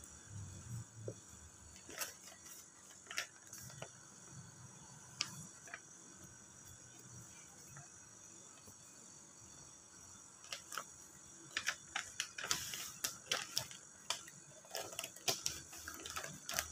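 Clear vinyl film crinkling and ticking as a squeegee and fingers smooth it over a plastic speedometer cover. The clicks are sparse at first and come in quick clusters over the last six seconds.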